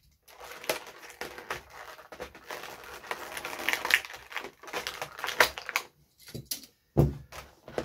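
Clear plastic blister packaging crackling and clicking as a toy car is prised out of its tray with pliers, a run of irregular clicks and crinkles. A dull knock near the end.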